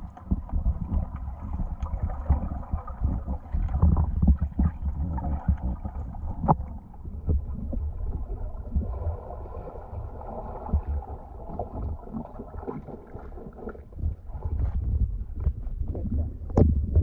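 Underwater noise picked up by a GoPro in its waterproof housing: a steady low rumble of moving water with scattered clicks and bubbling. Near the end there is a sharper splash at the water's surface.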